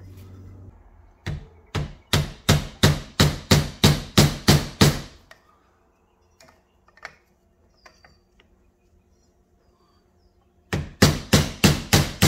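A hammer tapping the top of a length of PVC pipe to drive a new 6203-2RS ball bearing down the motor shaft of a pool booster pump, the pipe pressing on the bearing's inner race. Two runs of quick, sharp taps, about three a second, with a pause of several seconds between them.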